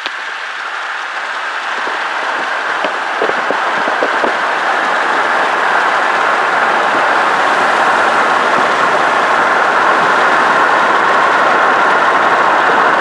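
Wind and road noise from a fast-moving car, filmed through an open side window: an even rushing noise that grows steadily louder as the car speeds up, with a few light knocks in the first few seconds.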